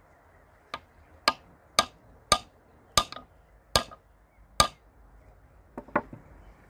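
Hammer tapping the bent end of a pointed steel threaded rod, knocking its point into the face of a wooden post to mark the centre. Seven sharp taps come half a second to a second apart, the first one lighter, then two lighter taps in quick succession near the end.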